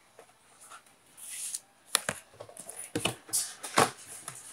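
Cardboard packaging being handled: a short scraping slide, then several sharp taps and knocks as the inner cardboard insert is worked loose from the box.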